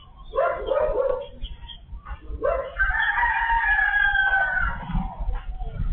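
Rooster crowing: a short call about half a second in, then one long drawn-out crow that falls slightly in pitch at its end.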